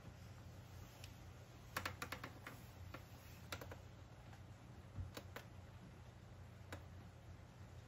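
Faint, irregular small clicks and taps, a quick run of them about two seconds in and a few single ones after, over a low steady hum.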